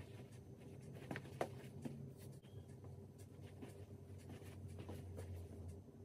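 Faint footsteps of black high-ankle Ducati shoes walking on a hard floor: scattered soft taps and clicks, the clearest about a second in, over a low steady hum.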